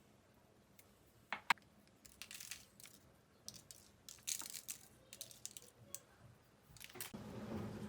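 Crinkling and rustling of something being handled, broken by a few sharp clicks. A steady low hum starts near the end.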